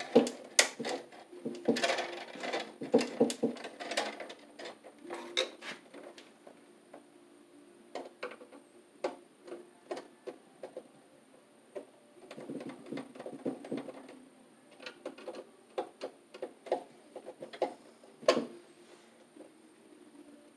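Electrical wires being handled and bent into place at a metal breaker panel: scattered small clicks and taps with stretches of rustling, busiest in the first few seconds and again around twelve to fourteen seconds in, and one sharp click near the end.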